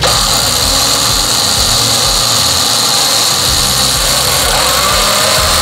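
Jeep's front-mounted electric winch powered in, its motor and gear train whining steadily as the drum spools in slack line until the line is tight. It runs on battery power alone, with the engine off.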